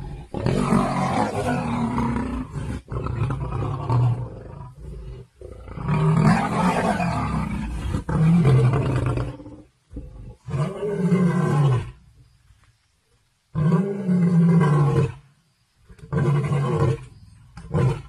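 Lion roaring: a series of deep, loud roars with short pauses between, the later ones shorter.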